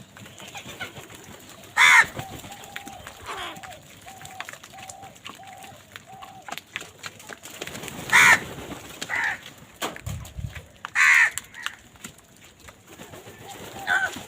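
Crows cawing: three loud caws spaced several seconds apart, with fainter calls between them. In the first half there is also a run of about seven short, evenly spaced lower notes.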